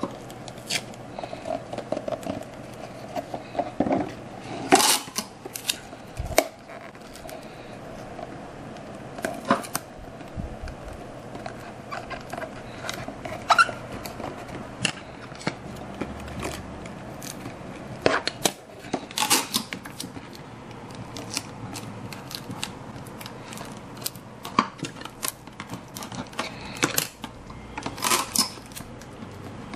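Irregular snips, clicks and rustles of hand paper-craft work: a cardboard cup sleeve being cut with scissors and handled. A faint steady hum runs underneath.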